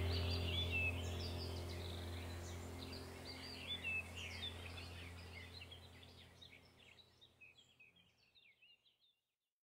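Ambient background music: a low steady drone with birdsong chirping over it, fading out gradually to silence about nine seconds in.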